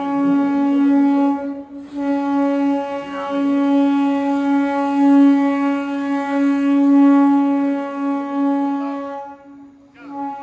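Vande Bharat Express train horn sounding a long, steady single-pitched blast as the train pulls into the platform, with a short break about a second and a half in, stopping about nine seconds in. Faint voices of the platform crowd sit underneath.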